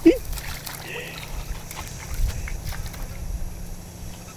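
A young Black Mouth Cur gives a short whine right at the start. Then there is a low, steady rumble of wind on the microphone, with faint sloshing and dabbling as the dog noses in shallow muddy puddle water.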